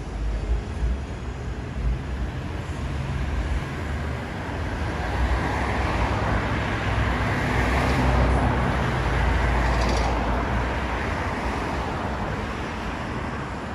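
Street traffic: cars driving past on the road, one passing close with its engine and tyre noise swelling to a peak about eight to ten seconds in, then fading.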